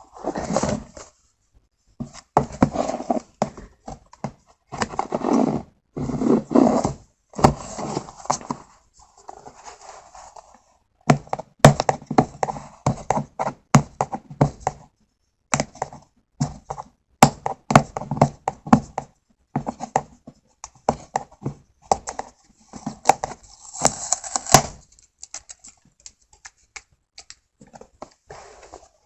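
Hands opening and handling the drive's retail packaging: irregular rustling and crinkling in bursts, with many sharp clicks and knocks.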